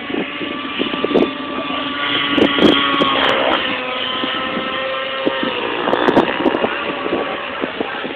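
Radio-controlled aerobatic helicopter in flight: its motor and rotor whine steadily, shifting up and down in pitch as it manoeuvres, with wind buffeting the microphone.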